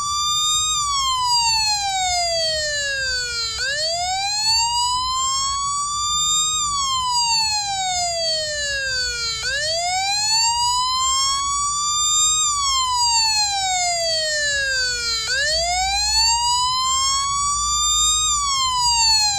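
Emergency vehicle siren in wail mode: one tone slowly rising and falling, each full cycle lasting about six seconds, running through about three cycles.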